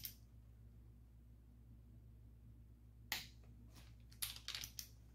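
A few light, sharp clicks and clinks of metal engine parts and tools being handled on a small-block Chevy engine block during assembly: one about three seconds in, then a quick cluster around four seconds, over a faint low hum.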